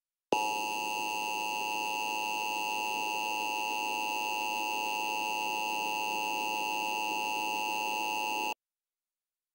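Emergency Alert System attention signal: a steady, unwavering two-tone alarm that sounds for about eight seconds and cuts off abruptly. It heralds a tornado warning message.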